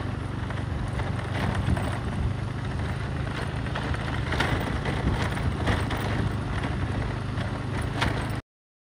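Motorcycle engine running steadily while riding, with road and wind noise and a few knocks and rattles. The sound cuts off abruptly near the end.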